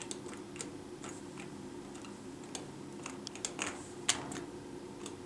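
Irregular sharp clicks of the pushbuttons on a ThyssenKrupp Traditional elevator car panel being pressed, about ten in all, over a steady low hum inside the hydraulic elevator car as it slowly levels.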